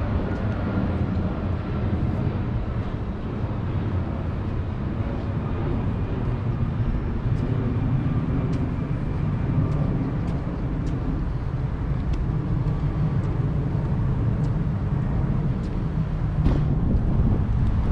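Street ambience with a steady low rumble of traffic, a passing vehicle's tone falling away over the first few seconds, and faint regular ticks about once a second.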